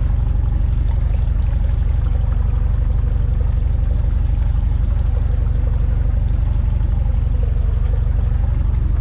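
Fishing boat's engine running steadily, a low, fast, even throb, with water washing against the hull.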